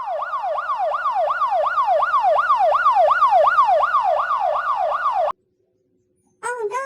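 Electronic toy siren wailing in fast repeated falling sweeps, about two and a half a second. It cuts off suddenly about five seconds in, and a few short pitched electronic sounds follow near the end.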